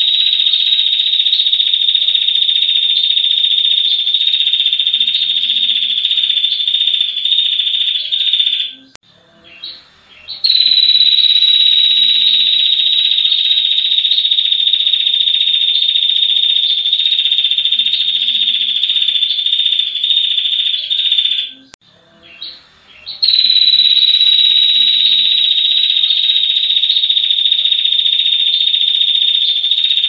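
Female ashy tailorbird giving its long rapid trill ('ngetir'): a high, steady buzzing rattle held for about ten seconds at a time, broken twice by short pauses.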